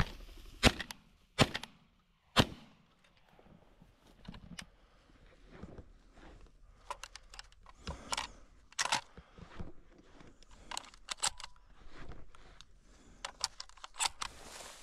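Three shotgun shots within about two seconds, followed by quieter rustling through cover and scattered light clicks and knocks.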